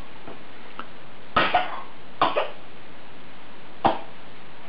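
Two short double coughs, a second or so apart, then a single sharp clink about four seconds in as a steel saucepan knocks against the feeding bowl.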